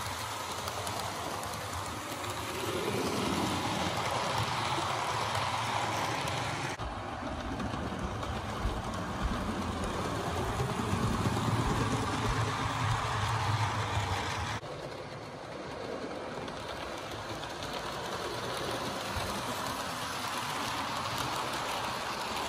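HO scale Thomas the Tank Engine model locomotive and coaches running along the track: a steady whir and rumble of the small motor and wheels on the rails. It grows louder as the train passes close, and the level changes abruptly twice.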